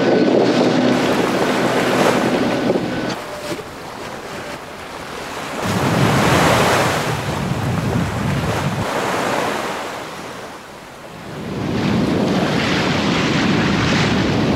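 Wind buffeting the microphone and choppy waves rushing along the hull of a sailboat under sail, swelling and easing every few seconds. A low steady hum runs under the first three seconds, then stops.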